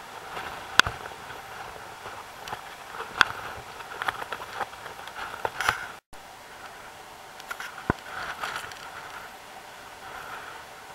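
Rough sea surf washing over rocks, a steady rushing noise with several sharp clicks and knocks scattered through it; the sound cuts out for a moment about halfway through.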